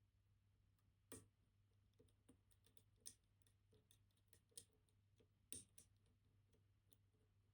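Faint, irregular small metal clicks and ticks of a lever pick probing the levers of a MIWA PR lever lock under tension, feeling for the binding lever; a few clicks stand out, about a second in, at three seconds, and twice more later.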